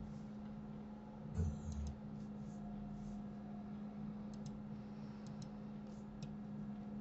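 Computer mouse clicks: a quick run of clicks with a soft knock about a second and a half in, then a couple of double clicks and a single click. A steady low electrical hum sits underneath.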